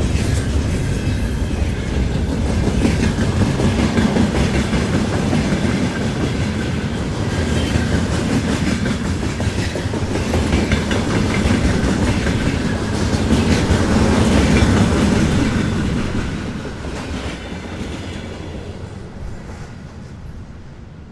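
Freight train rolling past, its wheels clattering rhythmically over the rail joints. It fades away steadily over the last few seconds.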